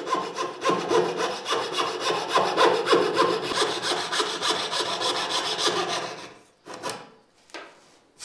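Coping saw cutting the curved scribe into the moulded end of a wooden skirting board for an internal corner joint: quick, short, even saw strokes that stop about six seconds in, followed by a few last short strokes.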